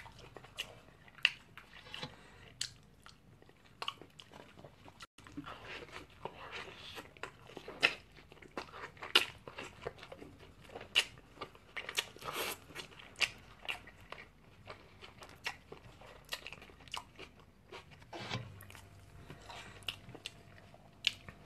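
A person biting into and chewing a sesame-bun hamburger close to the microphone: many short mouth clicks and smacks at irregular intervals.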